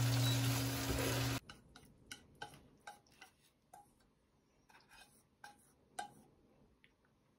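Chicken pieces sizzling in a frying pan as they are stirred with chopsticks, over a steady low hum; this cuts off abruptly about a second and a half in. Then come a series of faint clicks and taps as wooden chopsticks push the glazed chicken out of the tipped nonstick pan onto a ceramic plate.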